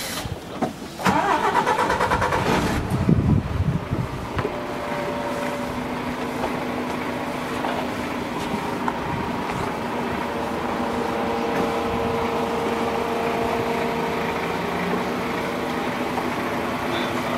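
The boat's inboard engine starting about a second in, running unevenly for a few seconds, then settling into a steady idle with an even hum.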